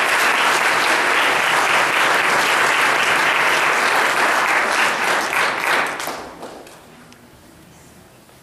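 Congregation applauding, the clapping dying away about six seconds in.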